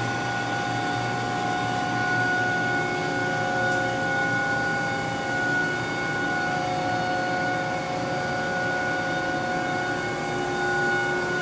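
Haas VF-3 CNC vertical machining center running steadily: an even mechanical hum with several steady whining tones, unchanging throughout.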